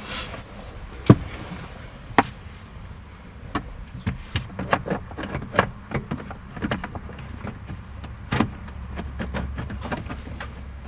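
A string of sharp clicks and knocks from wiring-harness connectors and plastic parts being fitted under a 1997 Honda Accord's steering column. The loudest comes about a second in, and a quick run of them falls in the middle.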